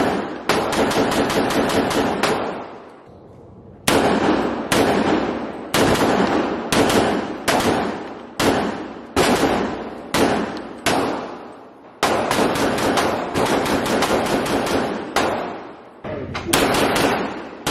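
Semi-automatic gunfire from an AR-15 carbine converted to .45 ACP with a 1911-magazine adapter: a long string of single shots at roughly one to two a second, with a pause of about a second near the start. Each shot echoes briefly in an indoor range booth.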